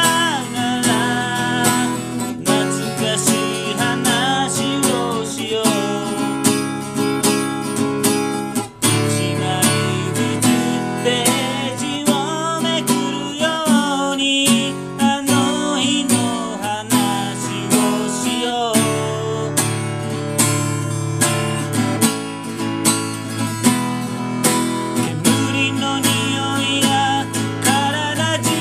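A song played on strummed acoustic guitar, with a wavering melody line over the chords.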